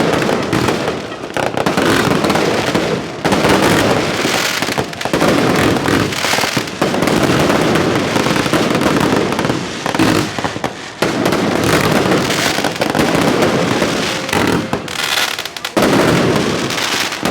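Aerial fireworks display going off continuously: rapid, dense bangs and crackling shells overlapping, with louder clusters every few seconds.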